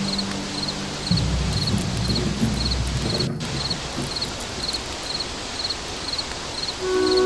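Crickets chirping in a steady, regular rhythm, about two short three-pulse chirps a second, over an even hiss of night ambience. A low rumble sits under the first few seconds, and music begins right at the end.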